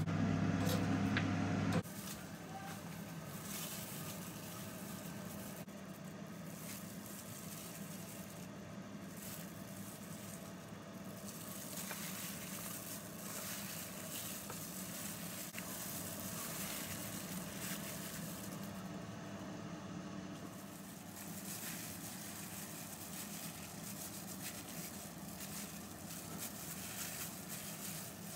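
Steady air fryer hum for about the first two seconds, cutting off abruptly. Then soft rustling and crinkling, as hands in plastic gloves toss firm tofu cubes in cornflour on a plate.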